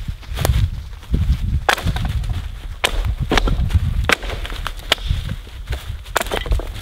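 Footsteps crunching through dry fallen leaves, with sharp, irregular snaps of twigs underfoot. A dog trots through the leaves too in the second half.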